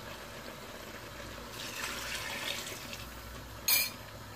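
Water pouring into an aluminium pressure-cooker pot of mutton in its spice masala, adding the cooking water. A short sharp knock comes near the end.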